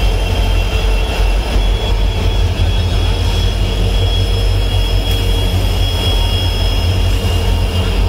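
Several Indian Railways diesel locomotives coupled in a line, their engines running with a deep steady rumble and a steady high whine above it.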